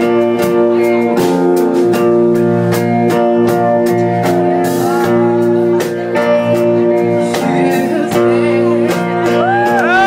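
Acoustic guitar strummed steadily, with a woman singing along; her voice rises and falls in long held notes near the end.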